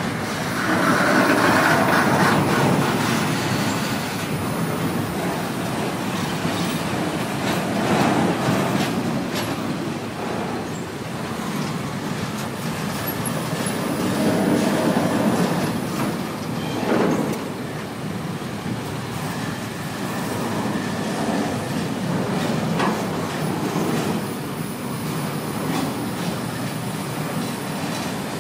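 CSX double-stack intermodal train's container well cars rolling past close by: a steady rumble and rattle of steel wheels on rail, with sharp clacks as the wheels cross the rail joints.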